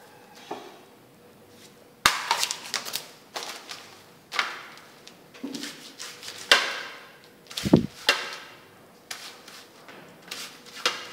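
Hands handling a dry rice-paper wrapper on a plastic tray: a run of sharp crackles, taps and knocks starting about two seconds in, with one dull thump about two-thirds of the way through.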